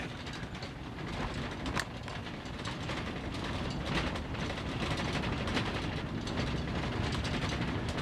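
Truck driven on a flat tire over a dirt road, heard from inside the cab: a rapid, continuous clatter and rattle over a low rumble, growing slightly louder, with one sharp click about two seconds in. The flat tire is being ruined by driving on it.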